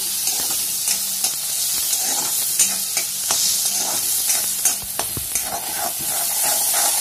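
Chopped onion, tomato and spices sizzling in hot oil in a kadhai, with a steel spatula stirring and scraping against the pan in irregular strokes.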